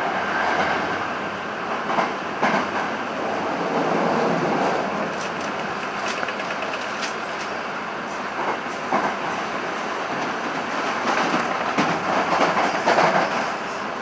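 Sanyo Electric Railway limited express train running at speed, heard from inside the car: a steady rolling rumble with the wheels clattering over rail joints and station points in scattered bunches of sharp clicks.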